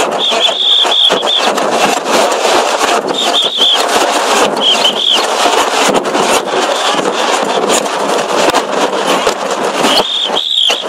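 Loud protest crowd din of many voices and shouts, with pea whistles blown in short trilling blasts about four times.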